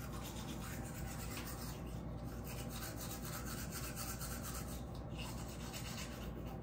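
Teeth being brushed with a toothbrush: steady, fairly quiet scrubbing.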